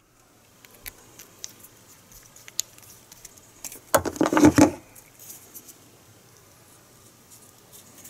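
Light clicks and handling noise of hand tools and a small sensor being handled, with a louder short clatter about four seconds in.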